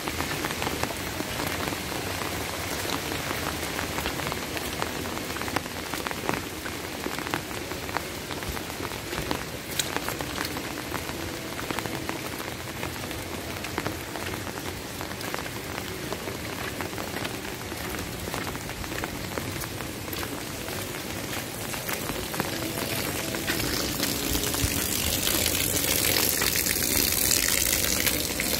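Steady rain falling, with many individual drops ticking. Near the end a louder, brighter rushing hiss builds up over the rain.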